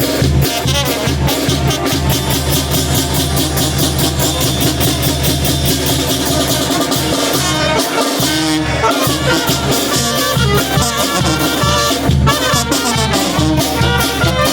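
Oaxacan village brass band playing a lively tune, with trumpets and other brass over bass notes and drums on a steady beat. The bass and drums drop out briefly about halfway through.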